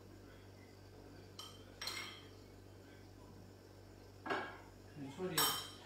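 Metal spoon clinking and scraping against a bowl and serving plate as cooked quinoa is spooned out: two light clinks about one and a half to two seconds in, then a louder run of scrapes and knocks near the end.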